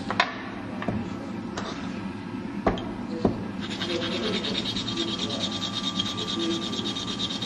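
A hand tool filing the rim of an Ogatsu slate inkstone blank in quick, even rasping strokes, several a second, starting a little past halfway. Before that come a few scattered knocks.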